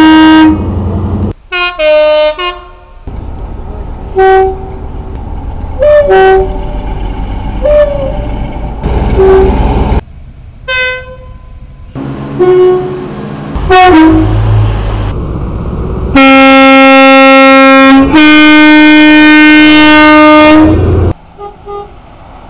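British train horns sounding in turn: several short toots, some two-note, over the low rumble of a diesel engine. Near the end come two long loud blasts, a low note and then a higher one, each about two seconds.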